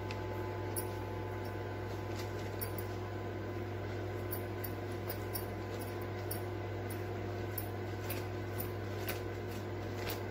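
A steady low hum fills the background, with faint, irregular light crinkles and ticks from a plastic sheet as hands press and pat a stuffed dough ball flat on it.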